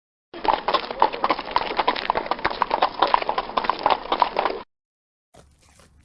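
Rapid clip-clop of galloping hooves, a quick steady run of hoofbeats that cuts off suddenly about four and a half seconds in.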